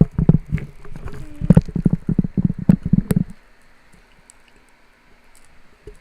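Squishy NeeDoh cube squeezed and pressed against the microphone: a quick run of low thumps, several a second, that stops about three seconds in.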